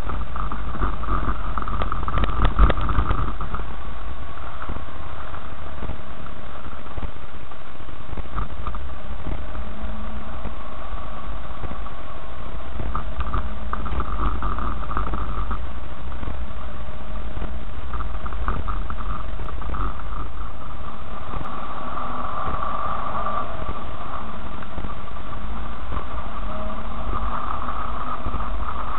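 Car engine running and tyres on a rough dirt track, heard from inside the car through a dashcam's low-grade microphone, with rattling knocks from bumps that are loudest about two to three seconds in.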